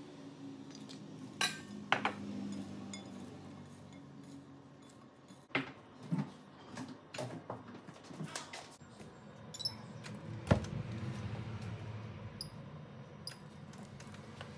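Scattered clinks and knocks of kitchenware being handled: a glass oil bottle and glass bowl as sliced onions and peppers are dressed with olive oil. There is one sharper knock about ten seconds in.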